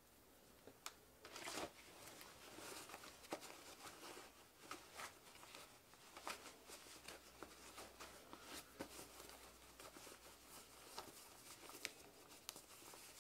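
Faint rustling of paper and cloth with scattered small clicks, the loudest rustle about a second and a half in: a magazine being put down and a person shifting on a sofa.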